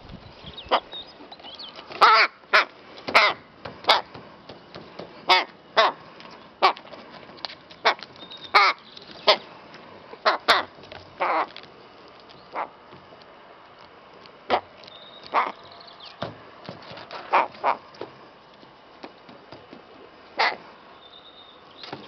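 A rook giving a long run of short, separate caws, many close together, with a quieter spell about halfway through.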